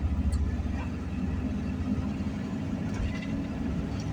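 Steady low rumble of a vehicle driving: engine and tyre noise on the road.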